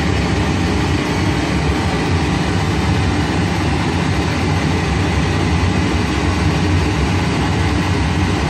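Boeing 767 flight-deck noise: a steady, loud low rumble with a hiss of airflow over it, unbroken throughout.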